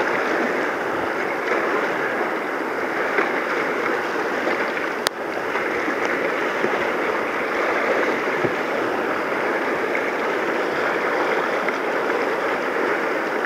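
Whitewater of a mountain river running at fairly high water, rushing steadily around a kayak. A single sharp click comes about five seconds in.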